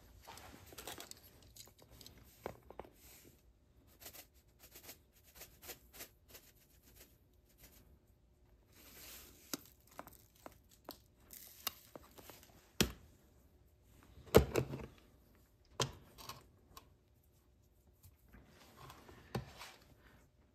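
Handling noises at a workbench while a 45-grain charge of black powder is measured: soft rustles of powder poured from a plastic can into a brass powder measure, and scattered clicks and knocks as the can, the measure and the revolver are handled and set down. The sharpest knocks come a little past the middle.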